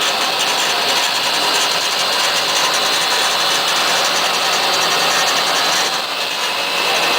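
Wilton 8203VS 14-inch vertical band saw running with no load, its 1 hp three-phase motor and blade drive making a steady whirring hum with a little vibration. The level dips briefly about six seconds in.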